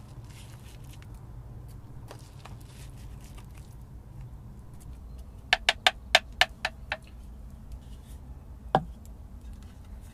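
Vessels being handled on a stone ledge: a quick run of about eight sharp clicks in just over a second, then a single knock a couple of seconds later as a clay pot is set down.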